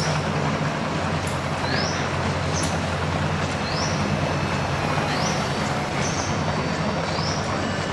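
Train running with a steady low rumble and rushing noise, over which short rising high-pitched chirps repeat about once a second.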